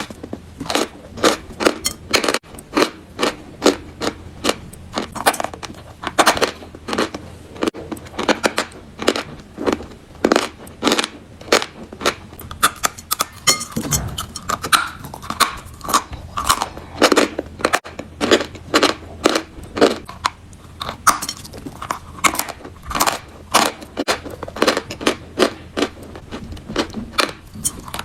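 Close-up crunching of chalk being bitten and chewed: a steady run of sharp, irregular crunches, about one or two a second.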